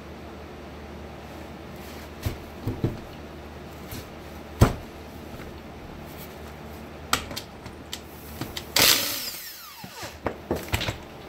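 Knocks and clanks of metal tools and pump parts handled on a workbench, the loudest about four and a half seconds in. About nine seconds in, a Milwaukee cordless power tool runs in a short burst, its whine falling as the motor spins down, followed by a few more light knocks.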